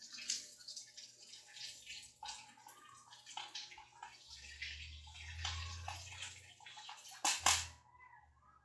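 Handling noise: irregular soft rustles, scrapes and clicks as a smartphone is pressed and adjusted in the plastic phone clamp of an LED ring light, with a louder clatter about seven seconds in.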